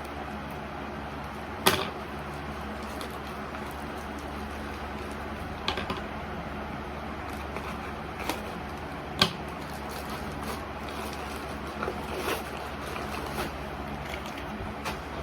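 A package being handled and unpacked: a handful of short sharp clicks and knocks, the loudest about two seconds in, over a steady background hum.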